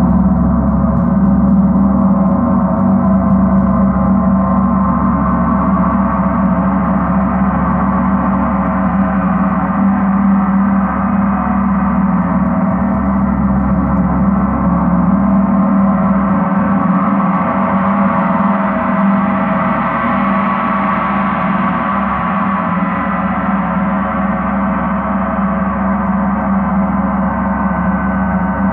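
38-inch Paiste Earth Year planet gong, tuned to C sharp, played continuously with soft felt mallets: a steady, sustained wash of many overlapping tones with no separate strikes standing out. The sound grows brighter about two-thirds of the way through, then eases back.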